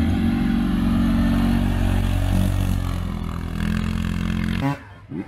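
An off-road vehicle's engine running loudly with small changes in pitch, cutting off suddenly near the end.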